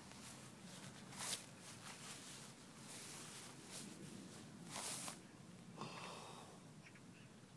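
Long grass rustling in a series of short, irregular swishes, the loudest a little after a second in and near five seconds.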